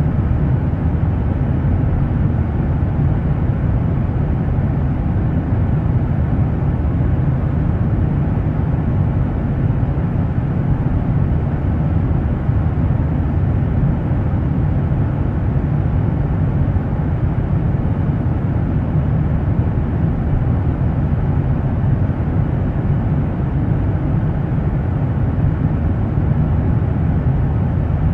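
Steady in-flight cabin noise of a Boeing 737-9 MAX: an even, low rumble of engines and airflow heard from inside the cabin.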